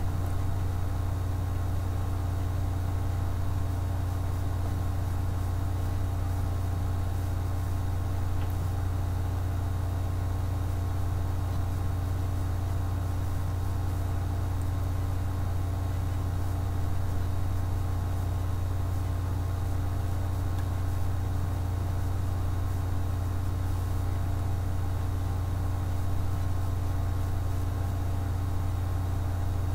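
A steady low hum with a few faint steady higher tones, unchanging throughout, with no other sounds.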